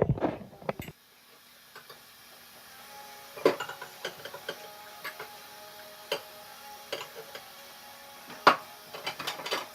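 Scattered light clicks and knocks over a faint steady hum, irregular, with two louder knocks about three and a half and eight and a half seconds in.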